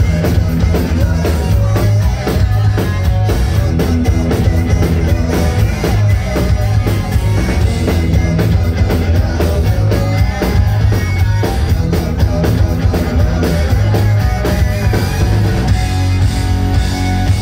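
Rock band playing live in an instrumental passage: drum kit, electric guitars and bass, with a harmonica played over it near the start.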